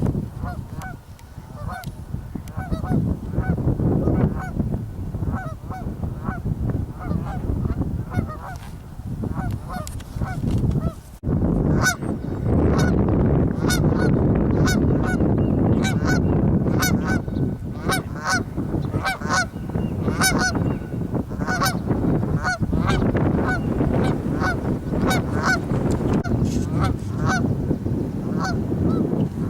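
A flock of geese honking: many short, overlapping calls one after another over a steady rumble. About eleven seconds in, the sound breaks off abruptly and comes back louder and denser.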